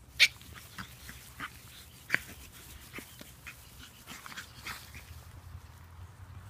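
Pug puppies yipping and squeaking as they play: a sharp high yip right at the start and another about two seconds in, with softer squeaks between.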